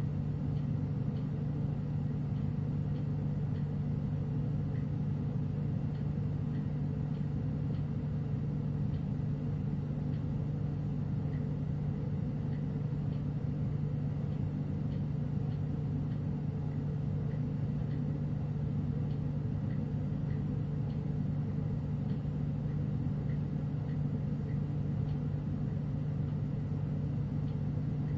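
Glass beadmaking bench torch burning steadily with a low, even rumble while glass is melted in the flame.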